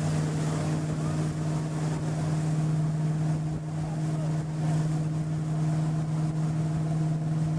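Motorboat engine running at a steady speed, a constant low drone, with wind buffeting the microphone.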